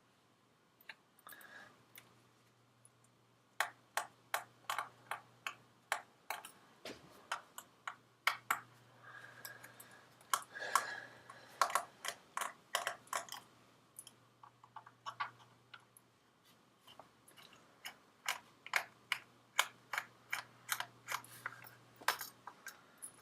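Small screwdriver working the tiny screws out of a MacBook Pro's memory cover: irregular sharp clicks and ticks of metal on metal, some in quick runs, over a faint steady low hum. The screws are loose, not captive, so they come right out.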